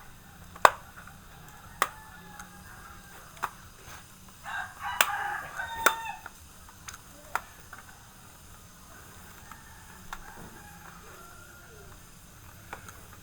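A rooster crows once in the background, about four and a half seconds in, lasting about a second and a half. Around it come about seven sharp clicks and taps from the laptop's plastic parts being handled and pressed into place.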